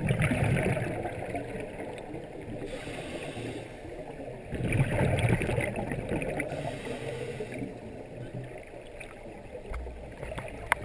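Scuba regulator exhaust bubbles, heard underwater through a GoPro's housing: two bubbling exhalations about four and a half seconds apart, with a muffled rumble of water between them. A few sharp clicks near the end.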